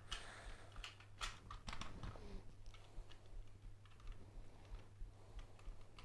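Irregular clicks and taps of hard plastic toy parts being handled and pressed together, over a faint steady low hum.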